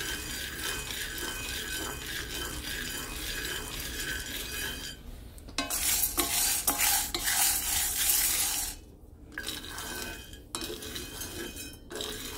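Roasting coffee beans rattling and scraping as a utensil stirs them around a skillet. The stirring gets much louder for a couple of seconds in the middle, then drops off suddenly.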